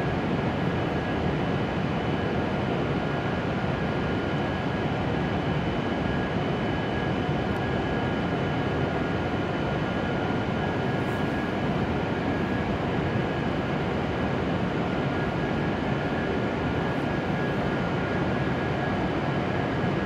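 E7 series Shinkansen standing at a platform, its onboard equipment running with a steady whirring hum and a few faint, steady high tones.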